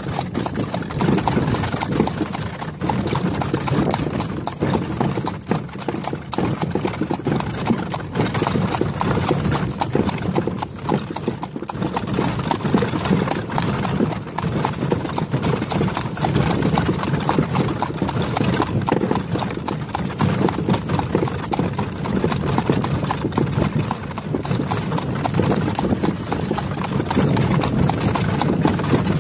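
A horse's hooves clip-clopping steadily on an asphalt road as it pulls a two-wheeled cart.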